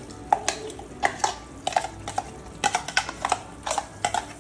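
Stainless steel mixer-grinder jar clinking and scraping against the rim of a steel cooking pot as paste is tipped and knocked out of it: an irregular run of about fifteen sharp metallic clinks with a short ring.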